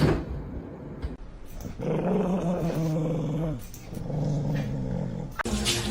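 Dog growling: two long, low growls, the first about two seconds in and the second about four seconds in.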